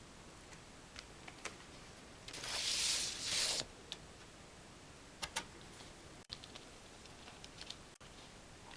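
Handling of vinyl record packaging: scattered light clicks and taps on cardboard and paper, with one louder rustling slide about two and a half seconds in that lasts about a second.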